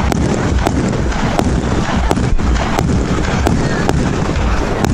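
A 1.3G compound firework cake, War of the Worlds, firing a rapid run of shots, about two bangs a second.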